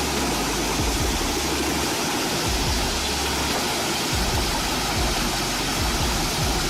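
Heavy processing machine running steadily: a dense, even roar over a low engine hum.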